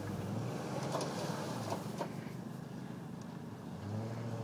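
A vehicle engine running steadily with a low, even hum that eases a little mid-way and strengthens again near the end, with a few faint clicks.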